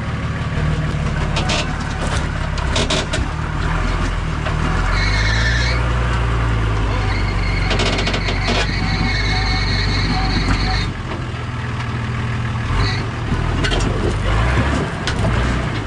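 A rock-crawling four-wheel drive's engine working under load over rocks. It revs up about five seconds in, holds there with a thin high whine, and drops back near eleven seconds. There are a few knocks early on.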